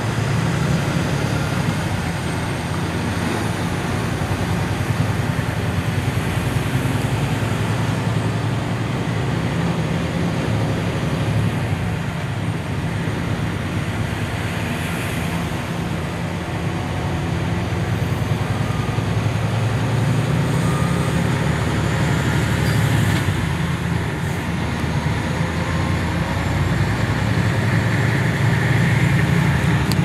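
A semi truck driving at freeway speed, heard from inside the cab: a steady low engine and road drone.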